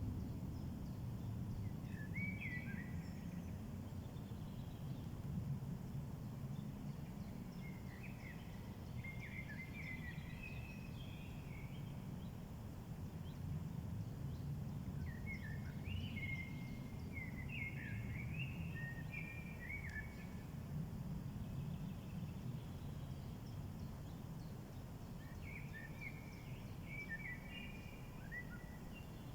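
A songbird singing short bouts of quick, high chirping notes, four times with pauses between, over a steady low rumble of outdoor background noise.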